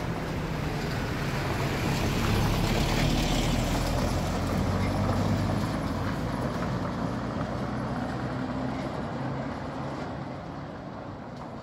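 A motor vehicle running close by, with a steady low engine hum under broad road noise. It is loudest a few seconds in and fades away toward the end.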